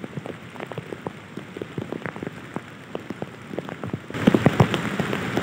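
Rain falling steadily, with many separate drop hits close by. It gets louder about four seconds in.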